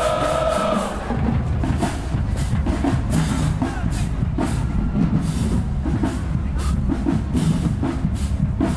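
A marching band's horns hold a chord that cuts off about a second in. Then the drum line carries on alone with a steady beat of bass and snare drums.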